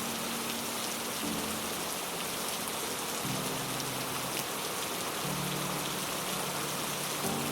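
Heavy rain falling steadily, an even hiss with scattered drop ticks. Underneath it soft, low, sustained musical notes change about every two seconds.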